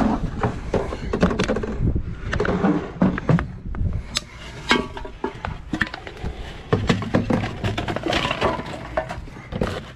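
Handling clatter: irregular knocks and clicks as a plastic cup, a soda can and other items are handled and stowed in a truck, over a steady low rumble.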